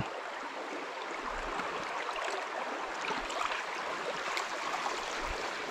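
Trout stream water running over rocks, a steady rushing babble.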